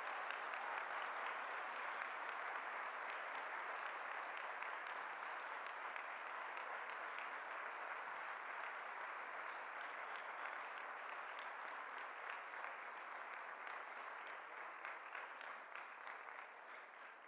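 Large audience applauding steadily, thinning to scattered individual claps and fading near the end.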